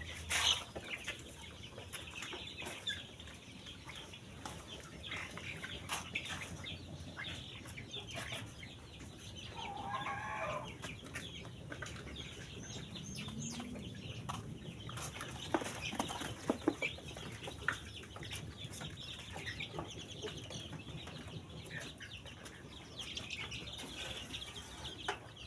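A flock of chickens clucking and calling, with many short scattered calls and one louder, longer call about ten seconds in.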